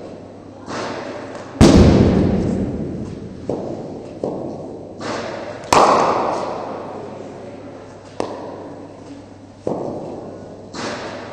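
Cricket ball impacts during a batting net session: a string of about nine sharp knocks and thuds from bat strikes and balls hitting the nets, each dying away with an echo. The two loudest cracks come about one and a half seconds in and just before six seconds.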